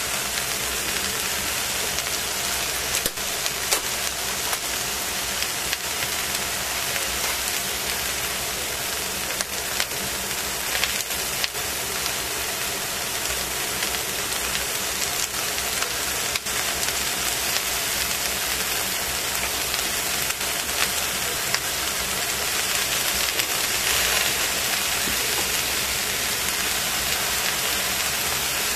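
Sliced cabbage, carrot and mushrooms sizzling as they cook in a stainless steel pot: a steady hiss with scattered small pops.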